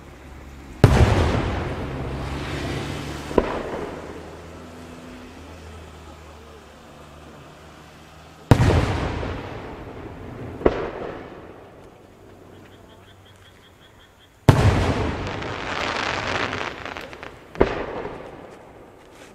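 Aerial firework shells bursting, heard from a distance: three deep booms several seconds apart, each rolling away over a few seconds and followed about three seconds later by a sharper single crack.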